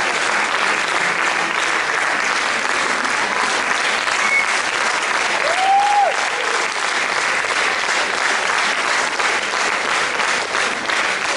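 Theatre audience applauding steadily after a dance performance, a dense even clapping throughout. One short high call rises and falls over the clapping about six seconds in.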